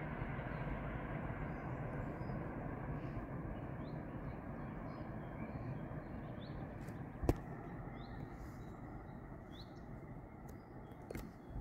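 Rumble of a train running away into the distance on the main line, slowly fading, with small birds chirping. A single sharp click about seven seconds in.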